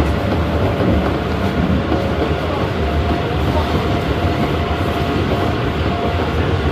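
Busan Metro Line 1 subway train running between stations, heard from inside the car: a steady rumble of wheels and motors on the track. A faint steady whine comes in a few seconds in.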